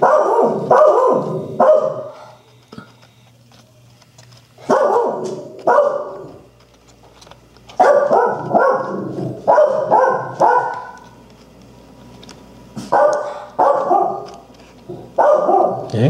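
A dog barking in repeated bursts of two to six short barks, separated by pauses of a second or more.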